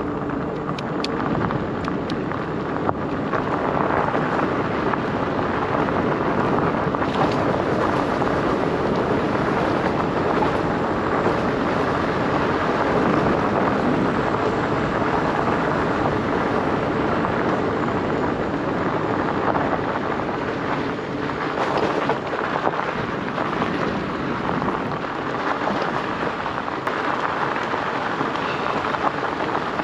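Fat 26 x 4.8 inch tyres of a Himiway Cobra electric bike rolling steadily over a gravel road, with wind noise on the microphone.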